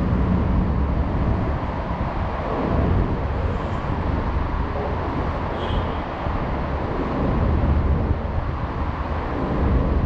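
Steady low rumble of road traffic on the highway bridge overhead, swelling and easing a little as vehicles pass.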